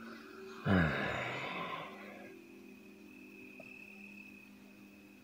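Steady night chorus of low droning calls with a continuous high insect trill; about a second in, a short falling cry or groan rises above it and fades out over about a second.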